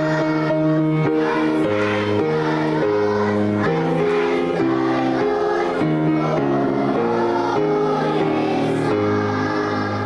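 Children's choir singing a song with instrumental accompaniment, the notes held and moving steadily over a bass line.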